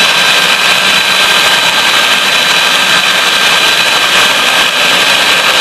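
Electric mixer running steadily at high speed, whipping eggs for a sponge cake batter, with a constant high whine over its motor noise.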